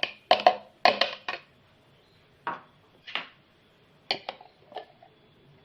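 Kitchen containers and utensils being handled: a string of sharp, irregular knocks and clinks, several close together in the first second and a half, then a few more spaced out.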